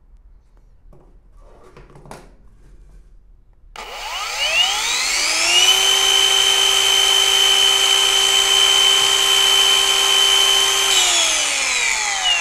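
Boda brushless twin-blade wall chaser started with a light press of its rubber push-button switch. It runs up smoothly on its soft start over about two seconds to a steady high whine, running with no load on its two diamond blades. About seven seconds later it is switched off and winds down with a falling whine.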